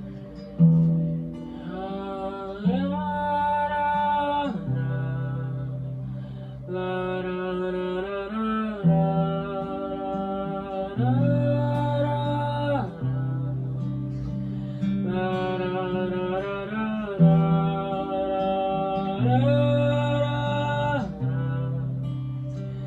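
Acoustic guitar playing a slow worship-song introduction, with held chords that change about every two seconds.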